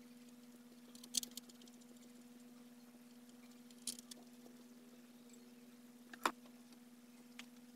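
A few sharp metallic clicks and clinks of tools and parts against the exposed valve train of an Isuzu 6WG1 diesel cylinder head, a small cluster about a second in and the loudest near six seconds in. A faint steady hum runs underneath.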